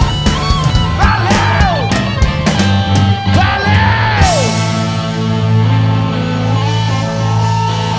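Live rock band playing loud: drums, electric guitars and bass, with sliding high notes rising and falling about every second and a half. About halfway through the drums stop and the band holds one sustained ringing chord.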